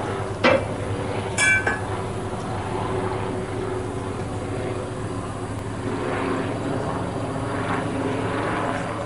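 Steady mechanical drone from a small steam locomotive on a hand-pushed railway turntable. There is a sharp metal knock about half a second in and a ringing metallic clang about a second later.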